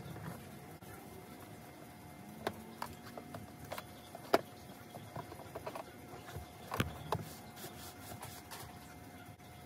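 Hard plastic center console of a Honda Prelude being handled and set into place: scattered clicks and knocks of plastic, the sharpest about four seconds in and another near seven seconds, over a faint steady hum.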